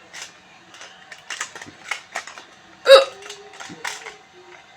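A woman hiccups: one loud, sharp voiced 'hic' about three seconds in, among several much fainter short clicks.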